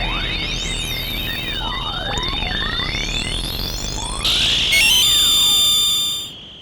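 Analog synthesizer playing a sci-fi warp sound effect: repeated pitch sweeps rising and falling over a steady high tone. About four seconds in, a burst of noise and a dense cluster of held tones takes over, then it fades out near the end.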